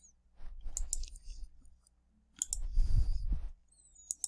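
Two short runs of clicks with a low rumble under them, about half a second in and again near three seconds in, like a computer mouse being clicked and moved on a desk.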